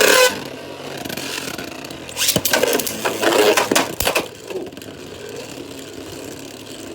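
Two Beyblade spinning tops, one of them 3D-printed, whirring and clashing in a plastic stadium. There is a loud burst at the very start as the launch ends, then a steady scraping whirr with a run of sharp metal clashes between about two and four seconds in, before it settles to a steadier spin.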